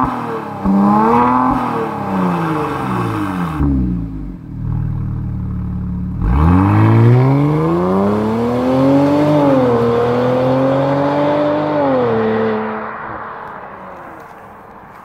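Car engine through a Borla Stinger aftermarket exhaust, blipped in a few quick revs, settling to a low idle, then accelerating hard away, with a shift about nine seconds in; the exhaust note fades as the car drives off.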